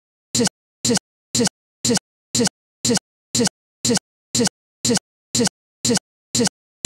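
A split-second snippet of the service audio repeating identically about twice a second, with dead silence between the repeats: a digital playback stutter where the recording has frozen.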